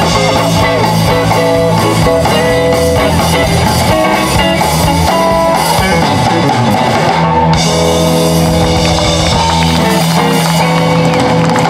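Live blues band playing, with an electric guitar carrying the lead in held and bent notes over bass and drums.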